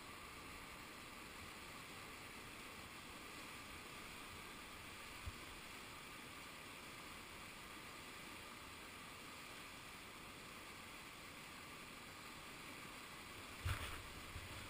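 Steady rush of whitewater rapids. A short knock sounds about five seconds in, and a louder bump about a second before the end.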